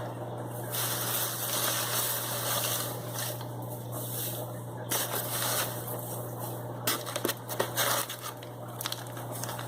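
Crinkling and rustling of packing material as a fish shipping box is unpacked, with scattered clicks and knocks, over a steady low hum.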